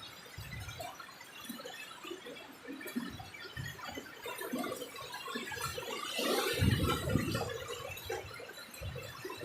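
Heavy rain and strong gusting wind, with scattered low thumps and a louder swell about six to seven seconds in.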